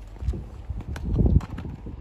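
A horse close by: low thuds, with the loudest and longest just after a second in.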